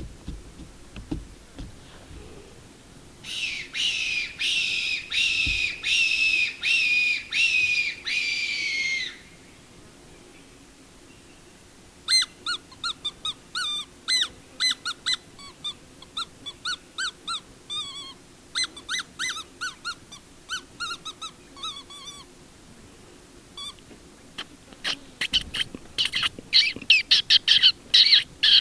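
Predator call squealing like distressed prey to lure a fox: about ten drawn-out squeals in six seconds, then a run of quick short squeaks, and another fast burst near the end.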